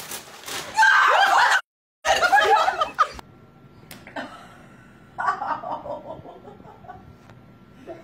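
People laughing: two loud bursts in the first three seconds, split by a brief silent cut, then quieter chuckling.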